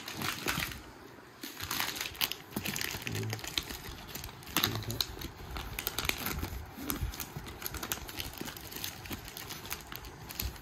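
Plastic packaging and powder packets of a hand-casting kit crinkling and rustling in irregular bursts as the kit is unpacked, with scattered small clicks.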